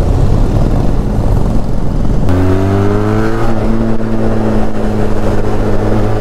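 Parallel-twin motorcycle engine under way, heard at first through a noisy rumble of wind; a little over two seconds in its note comes through clearly, rising briefly as the bike accelerates and then holding steady.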